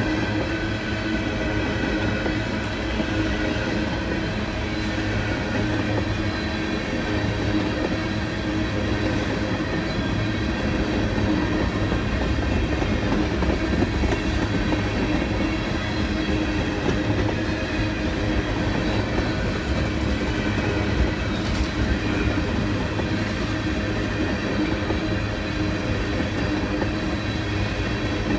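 Freight train of tank cars rolling steadily past at close range: a continuous rumble of steel wheels on rail with a steady ringing tone over it, and a couple of light clanks about three-quarters of the way through.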